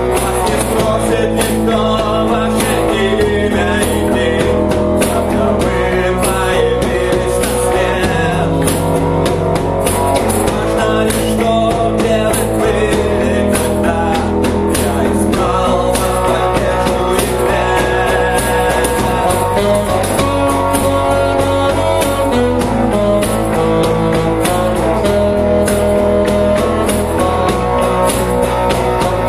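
Punk-rock song played on guitar, bass guitar and cajon, with a steady beat struck on the cajon and a bass line moving from note to note every second or two.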